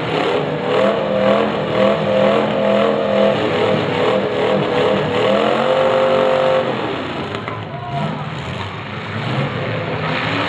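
Demolition derby car engines revving and running, several at once, with pitch rising and falling. About five to seven seconds in, one engine's pitch climbs and holds, then drops away.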